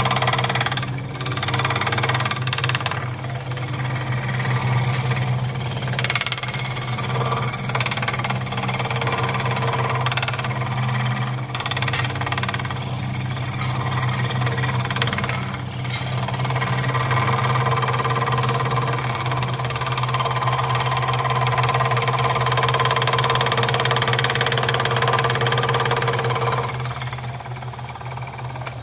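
Electric scroll saw running with a steady hum, its reciprocating blade cutting through a small block of wood as it is fed by hand. The cutting noise falls away shortly before the end and the motor stops right at the end.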